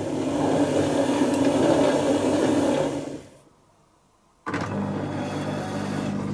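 Dyson Contrarotator CR01 washing machine mid-wash. The drums turn with a loud rushing, tumbling noise that winds down and stops about three seconds in. After a pause of about a second, the machine starts again abruptly with a steady low motor hum.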